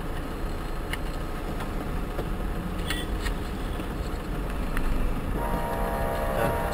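Steady road and engine noise heard from inside a car in slow traffic, then about five seconds in a car horn starts and holds.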